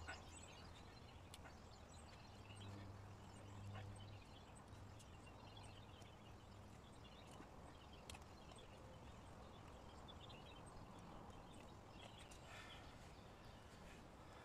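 Near silence with a few faint clicks and short scrapes: a bushcraft knife cutting a notch into a birch branch.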